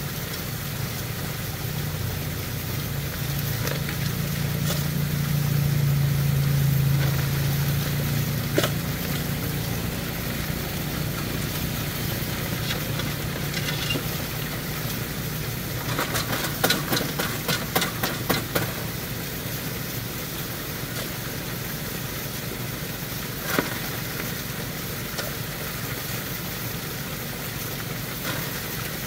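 Small gasoline engine driving the water pump of a high banker sluice, running steadily and swelling a little a few seconds in. Over it, shovelfuls of gravel and rock clatter into the metal hopper, with a quick run of knocks about halfway through.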